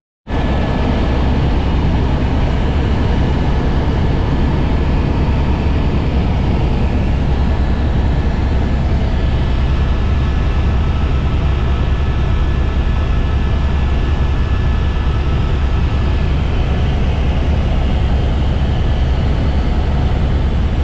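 Helicopter in flight heard from inside the cabin: a loud, steady, fast-pulsing low rumble with a thin steady whine on top. It cuts in abruptly a moment after the start.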